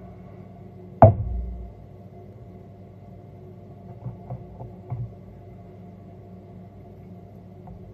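A single sharp knock about a second in, then a few soft clicks of a pump soap dispenser being pressed around four to five seconds in, over a steady low hum.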